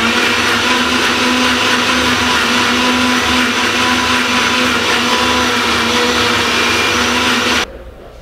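V-Guard Envy mixer grinder running steadily, grinding coconut into a curry paste in its steel jar. It is switched off near the end and the motor cuts out.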